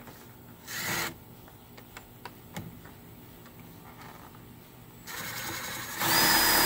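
A cordless drill driving a screw into a metal track overhead. There is a short burst about a second in and a few light clicks, then from about five seconds a longer run that gets louder a second later.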